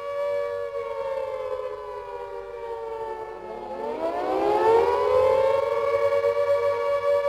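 Air raid siren of the kind used in wartime Britain, a two-note wail. Its pitch sinks slowly for about three seconds, then climbs again and holds high and louder near the end. This rise and fall is typical of the alert warning.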